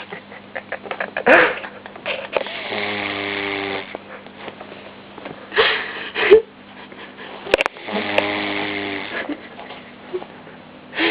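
Vizsla puppy snoring in its sleep: two long snores about five seconds apart, with short snuffles and sniffs between them. A sharp click comes just before the second snore.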